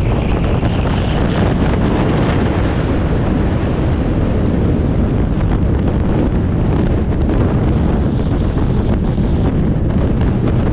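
Wind buffeting the microphone of a camera carried on a moving ride: a loud, steady rush and rumble.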